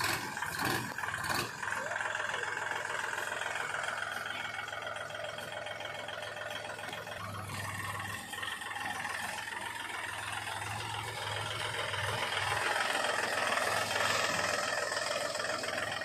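Sonalika DI 42 RX tractor's diesel engine running steadily as the tractor moves slowly, with a few sharp knocks in the first second or so.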